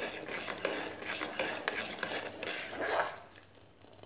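Steel ladle stirring thickened chicken soup in an aluminium pot, with repeated clinks and scrapes of metal on metal and liquid sloshing. The sound grows quieter about three seconds in.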